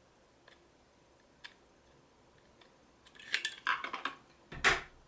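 Small hard parts being handled: a few faint clicks, then a quick run of clicks and clatter about three seconds in, ending in a louder knock near the end.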